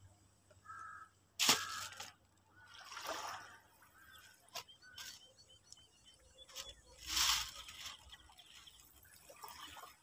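Open-air shoreline ambience: short bursts of hiss-like noise, the loudest about a second and a half in and about seven seconds in, with a few brief bird calls and small clicks between them.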